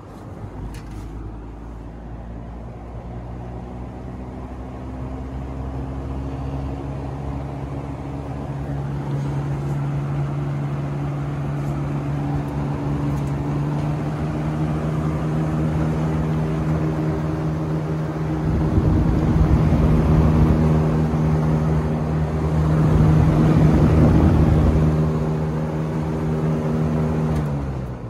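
1970 Coronado (Lasko) 3713 20-inch box fan running: its hum rises slowly in pitch as it comes up to speed, then holds steady. A louder rush of air comes twice in the second half, and near the end the hum drops in pitch and fades.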